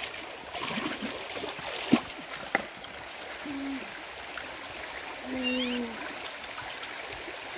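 Shallow stream water running and trickling, with splashes. There are two sharp knocks in the first few seconds, and a couple of short, low, steady-pitched calls later on.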